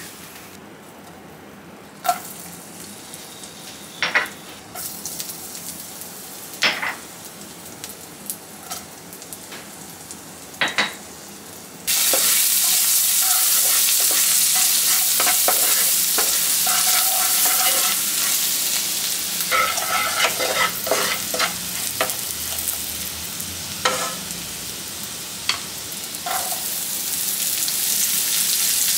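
A metal spoon clicks and scrapes against a frying pan over a faint sizzle of oil, a few sharp knocks. About twelve seconds in, a loud sizzle starts suddenly as chopped garlic, ginger and chillies fry in hot butter, with the clicks of a spatula stirring them in the pan.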